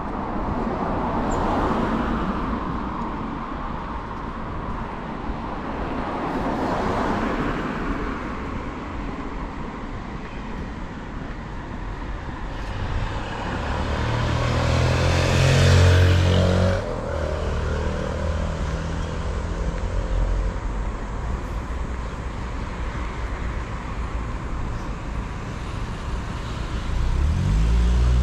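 City street traffic: cars swish past on the road, then a vehicle's engine passes close, loudest about halfway through and dropping away sharply. Near the end another engine note rises as a vehicle pulls away.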